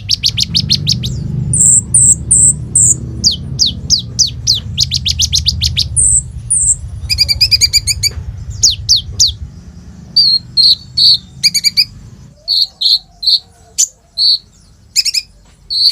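Kolibri ninja, a sunbird, singing a fast, varied song of high thin descending notes, rapid trills and sharp chirps, the full, mimicry-packed song that keepers call gacor. A low hum underneath stops about 12 seconds in, leaving the chirps more spaced out.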